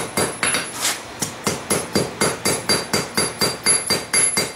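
Hand hammer striking hot railroad-spike steel on an anvil in a steady rhythm of about four blows a second, with a short metallic ring after each blow. The blows are spreading apart the split tines of a forged fork.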